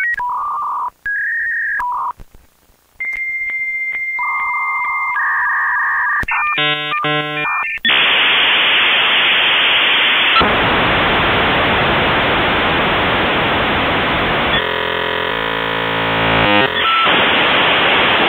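Dial-up modem connecting: touch-tone dialing and steady phone-line tones for the first few seconds, then the loud hissing handshake noise with a passage of stepped warbling tones near the end.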